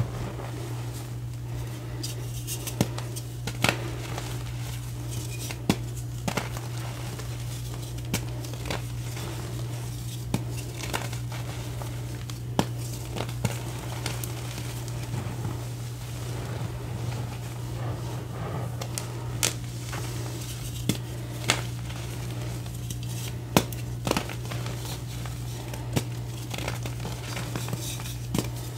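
Hands squeezing and crushing crumbly reformed gym chalk powder, the clumps giving a soft crunching with sharp crisp snaps scattered throughout. A steady low hum runs underneath.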